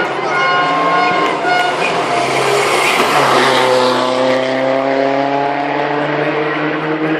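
Rally car going by at speed. The engine note breaks off briefly a few times early on, a surge of hiss from tyres and road peaks about three seconds in as it passes, then the engine note drops lower and climbs steadily as the car accelerates away.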